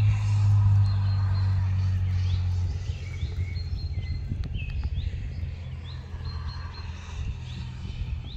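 Thurbo electric multiple-unit train passing with a steady low hum, which drops away about three seconds in. Birds chirp repeatedly throughout with short rising calls.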